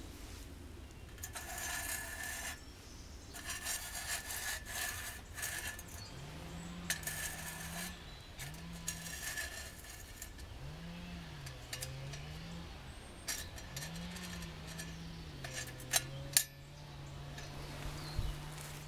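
Bent-wire pan support scraping and rubbing against the stainless steel rim of a wood gas camp stove as it is moved by hand, in several bursts, with two sharp metallic clicks about sixteen seconds in. A low hum that rises and falls in pitch runs underneath from about six seconds in.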